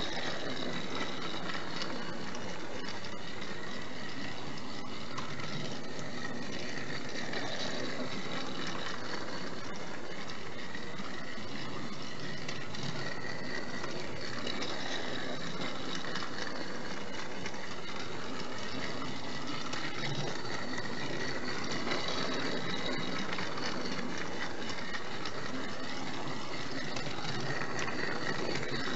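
Battery-powered TrackMaster Thomas toy engine running around its plastic track: the small geared motor gives a steady whining buzz, with the wheels rolling on the plastic rails.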